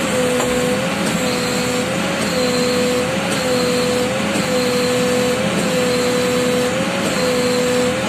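Mahindra EarthMaster VX backhoe loader running, heard from inside its cab: a steady whine that wavers slightly about once a second, with a beep repeating at the same pace.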